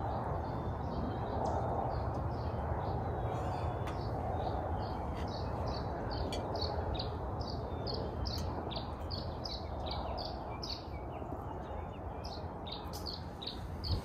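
A songbird repeating short high chirps in a long run, about two to three a second, starting a few seconds in, over a steady low rumble.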